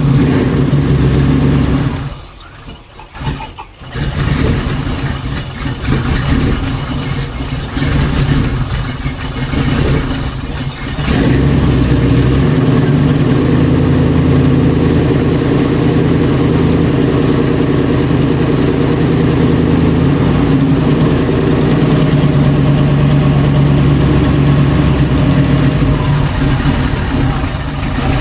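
A 1966 Ford Bronco's engine running just after its first start following restoration. The sound drops away sharply about two seconds in and returns about two seconds later, runs unevenly for several seconds, then settles into a steady run.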